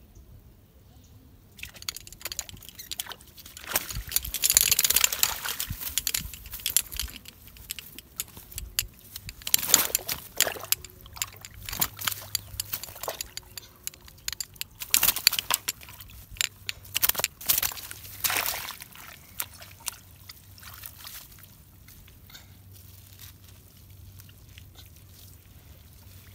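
Water splashing and sloshing in irregular bursts as a hooked fish thrashes and is hauled out of a shallow weed-choked pond, loudest about four to six seconds in, then dying down to light rustling near the end.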